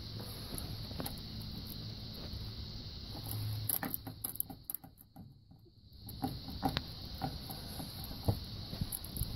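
Scattered faint clicks and scrapes of a plastic fuel-line disconnect tool being pushed and worked into a 1999 Ford F-150's fuel filter quick-connect fitting, over a steady high-pitched hum. The background drops out for about two seconds around halfway.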